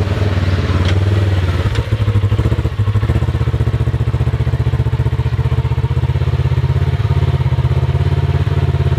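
Vehicle engine running steadily with a deep drone; about two seconds in it takes on a fast, regular throb that holds to the end.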